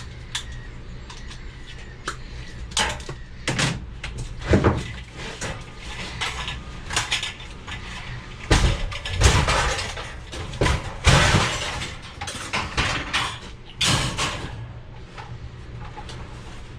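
Metal scrap being worked on by hand: repeated clanks and knocks of metal on metal, with a longer stretch of rattling and scraping about halfway through.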